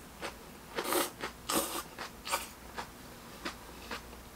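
A person chewing a mouthful of bun cha noodles, with several short, irregular chewing and crunching noises.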